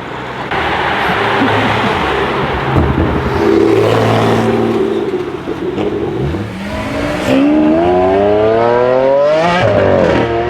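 BMW M5 F90 Competition's twin-turbo V8 with a straight-pipe exhaust accelerating hard and loud. A rough rumble in the first half gives way to the engine pitch rising steadily for about three seconds, dropping sharply at an upshift near the end and climbing again.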